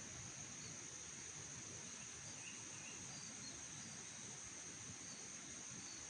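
Steady high-pitched insect chorus, crickets or similar, droning without a break over a faint low background rumble, with a few faint short chirps in the middle.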